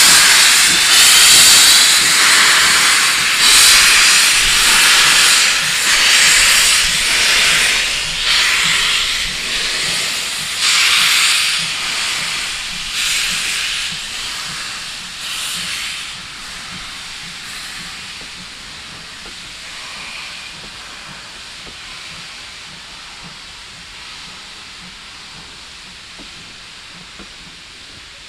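Steam locomotive 7822 'Foxcote Manor', a GWR Manor class 4-6-0, pulling slowly away with its cylinder drain cocks open: loud hissing blasts of steam about once a second in time with the driving wheels. The blasts fade over about fifteen seconds as the engine draws away, leaving a quieter steady hiss while the carriages roll past.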